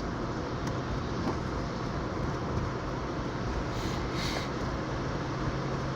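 Steady road and engine noise inside a moving car's cabin, with a low even hum.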